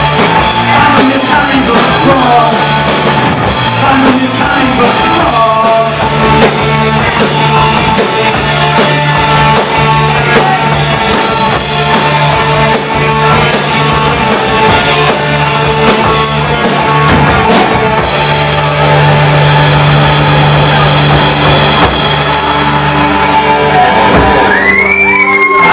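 Live rock band playing loud and full: distorted electric guitars, bass guitar and a drum kit, with a sung vocal. A high sliding tone rises and falls near the end.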